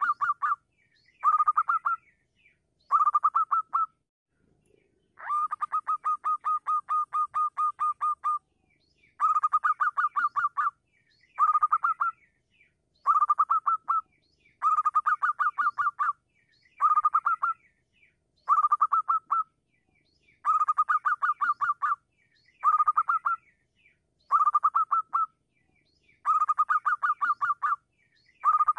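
Zebra dove (perkutut) calling in bursts of rapid staccato cooing notes, each burst about a second long and repeated every one to two seconds. One longer run of about three seconds comes about five seconds in.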